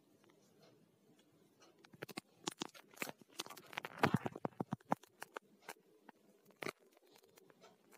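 A flurry of small clicks and rustles over a faint steady hum, densest from about two to five seconds in, then a few scattered clicks.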